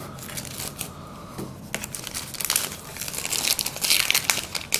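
Plastic wrapper of a trading-card box topper crinkling and tearing as it is cut and pulled open, in irregular rustles with a louder stretch near the end.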